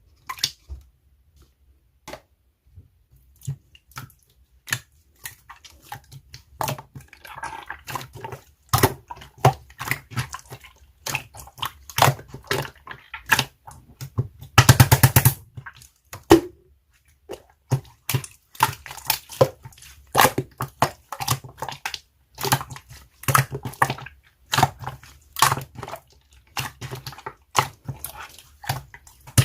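Slime being squished and pressed by hand, giving irregular sharp sticky pops and clicks with short quiet gaps, and a dense, loud run of crackling pops about halfway through.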